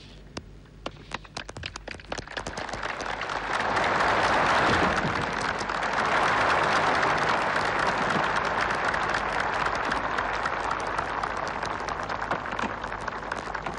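Audience applauding: a few scattered claps at first, swelling into steady, dense applause a few seconds in.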